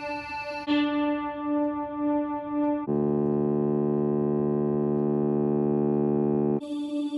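Yamaha portable keyboard playing single held notes. On the accordion voice a note holds with a slight wavering, and a new note starts just under a second in. About three seconds in, a lower, fuller tuba-voice note holds steadily for about three and a half seconds, then a brighter-sounding voice takes over near the end.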